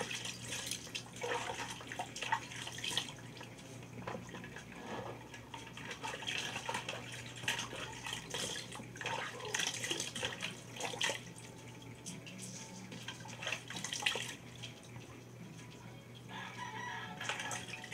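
Water splashing and dripping as a face is washed by hand, cupped handfuls of water thrown onto the face to rinse off soap, coming in irregular splashes.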